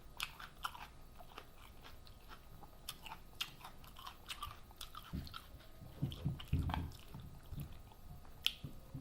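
Close-miked chewing of a loaded taco: many short, wet, smacking clicks throughout, with heavier low chewing sounds around five to seven seconds in.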